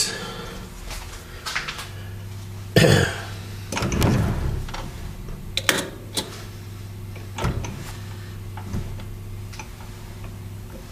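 Scattered metal knocks and clicks as a dial test indicator on its holder arm is set up against a lathe-mounted steel backing plate, the loudest knock about three seconds in. A steady low hum starts about two seconds in.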